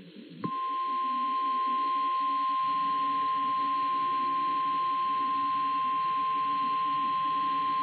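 Weather radio alarm: a single steady tone just above 1 kHz, the National Weather Service 1050 Hz warning alert tone. It starts suddenly about half a second in and holds unbroken over a low hum, ahead of a severe thunderstorm warning.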